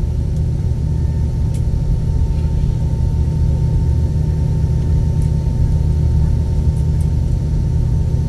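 Steady low rumble inside the cabin of an Airbus A320 on the ground, with a thin steady whine over it.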